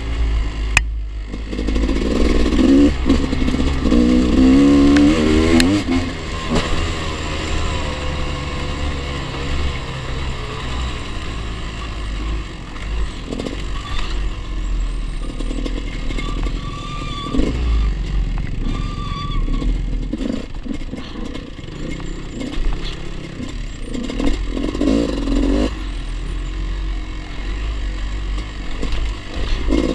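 Dirt bike engine running under changing throttle while riding a rough gravel trail, with stones clattering under the tyres. The engine pitch climbs sharply twice, from about two to six seconds in and again near twenty-five seconds.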